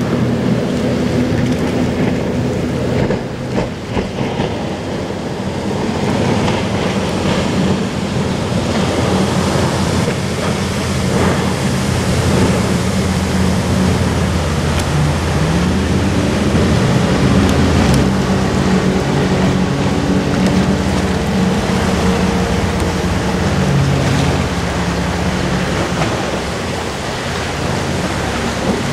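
Fire boat's engine running under way, with the steady hiss of its water cannon's spray falling on the lake; the engine note shifts, rising about halfway through.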